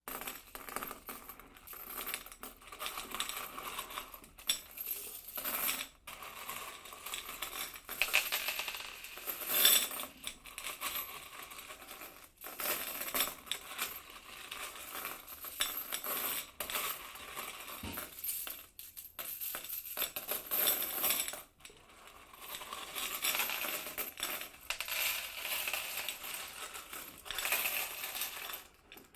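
A pile of coins being scooped by hand, a continuous metallic jingling and clinking in irregular swells, with brief pauses between scoops.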